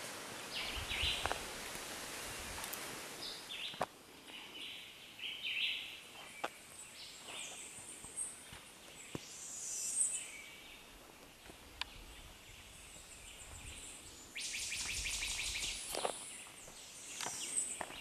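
Forest ambience: several birds chirping and calling in short scattered phrases over a soft steady hiss. About three quarters of the way through there is a buzzy, evenly pulsed trill lasting a second or two, and now and then a faint click.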